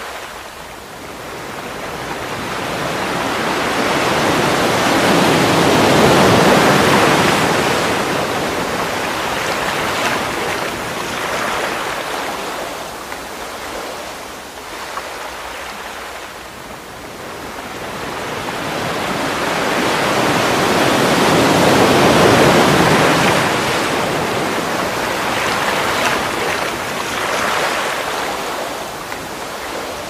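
Small sea waves washing in and out on a pebble beach, the surf swelling and fading slowly, with two larger surges about sixteen seconds apart.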